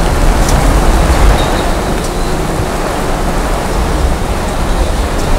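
Heavy rain pouring down: a steady, even rush of noise with strong low-pitched noise underneath.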